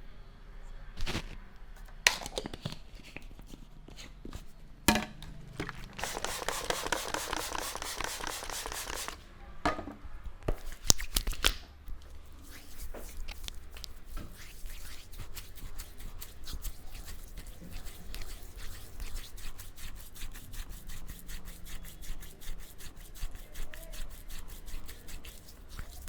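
Hands giving a head massage: a few sharp slaps, a burst of fast rubbing for about three seconds, then quick rhythmic tapping or chopping strokes, several a second, through the second half.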